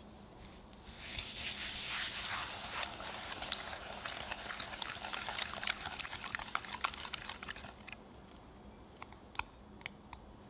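Silicone-coated whisk beating eggs with brown sugar and vanilla in a glass bowl. The whisking starts about a second in, runs as rapid clicking and splashing, and stops a little before the end, followed by a few separate sharp clicks.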